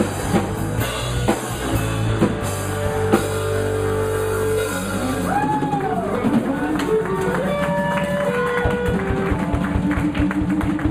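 Live rock band playing: drum kit keeping a steady beat under bass and electric guitar. About halfway in, a lead line comes in whose notes bend up and down in pitch.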